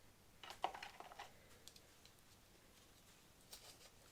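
Near silence with a few faint clicks and light rustles of small accessory pieces and packaging being handled: a short cluster about half a second in and a couple more near the end.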